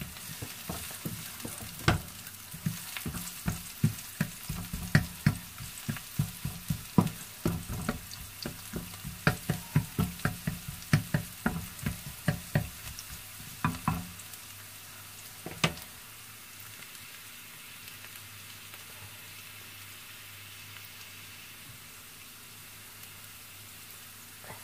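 Sliced onions and chopped garlic sizzling in oil in a non-stick frying pan, stirred with a wooden spatula that knocks and scrapes against the pan many times during the first half. After that only the steady sizzle goes on, with one more knock.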